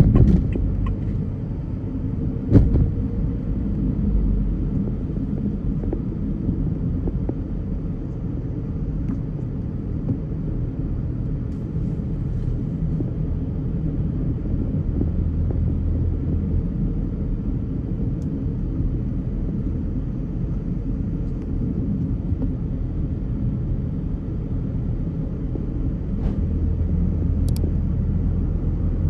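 Car driving in traffic: a steady low road and engine rumble, with one sharp knock about two and a half seconds in and the rumble swelling slightly around the middle and near the end.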